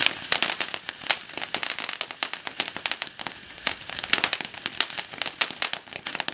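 Ground firework fountain shooting sparks, with small bursts overhead: a dense, rapid, irregular crackle of sharp pops and snaps.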